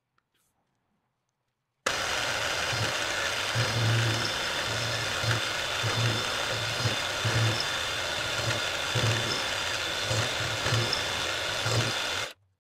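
Milling machine running with its end mill cutting a recess in a metal ring on a rotary table: a steady machining noise with a constant whine and a low, irregular pulsing. It starts abruptly about two seconds in and stops abruptly near the end.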